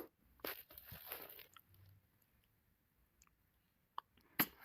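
Faint short crackling or rustling noises in the first second or so, then near quiet with a few small clicks near the end.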